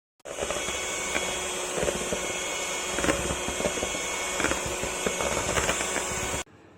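Cornell CSM-8007HP 250 W stand mixer running, switched on suddenly and cutting off after about six seconds, with a steady motor hum and irregular light knocks.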